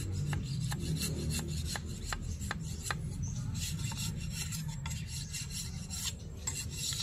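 Bolo knife blade scraping a thin bamboo rod in quick repeated strokes, about three a second at first and then faster, shaving it down because it is still too tight to fit into the bamboo barrel.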